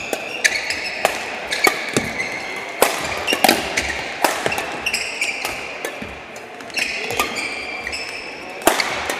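Badminton doubles rally: sharp racket strikes on the shuttlecock, roughly one every half second to a second, mixed with shoes squeaking on the court floor, in a large echoing hall.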